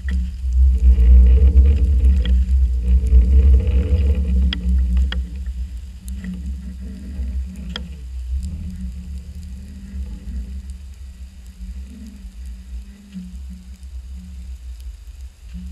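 Muffled low rumble of water moving around a GoPro in its waterproof housing deep underwater, loudest in the first few seconds while the camera is swinging, then easing. A few sharp clicks and knocks sound over it.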